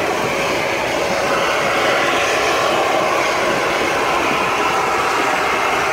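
Steady running noise of a narrow-gauge steam train, heard from an open car as it rolls around a curve.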